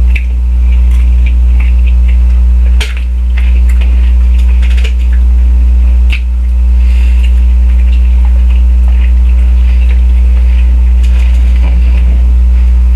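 Loud, steady low electrical hum that cuts in suddenly after silence, with scattered small clicks and rustles over it and brief dips about three and six seconds in.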